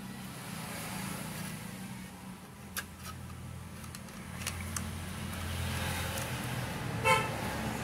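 Light clicks and taps as a TV power-supply circuit board is handled and turned over on a rubber work mat, over a low steady rumble. A short pitched beep sounds about seven seconds in.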